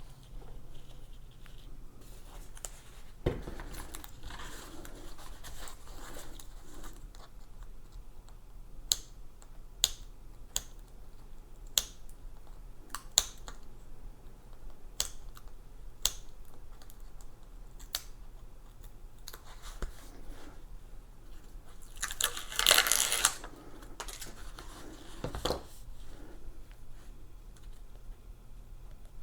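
Hand-working sounds while fitting pads with Velcro: a knock, a run of scattered sharp clicks and taps, then a short tearing rustle about 22 seconds in, the loudest moment, and another knock.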